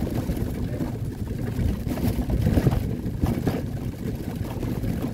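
Wheels of a collapsible canvas wagon rolling along, a continuous uneven rumble and rattle heard from inside the wagon bed.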